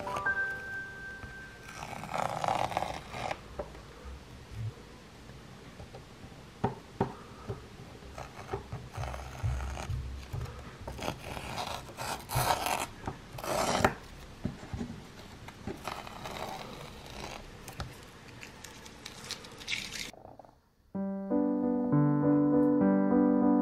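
Masking tape being peeled off the edges of an acrylic painting on canvas: a string of irregular ripping and scraping strips, the loudest about two seconds in and again around twelve to fourteen seconds. The tearing stops about twenty seconds in, and piano music starts a second later.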